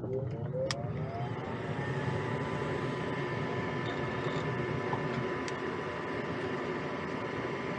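Gas furnace draft inducer motor starting up: its whine rises in pitch for about a second and a half, then settles into a steady run. A sharp click comes under a second in.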